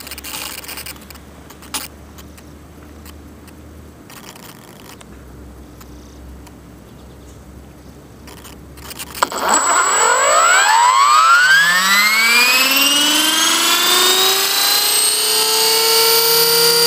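Blade 400 electric RC helicopter's motor and rotor spooling up from rest: after faint handling noise and a click, a whine starts suddenly about nine seconds in and rises steadily in pitch for several seconds before levelling off at flying speed.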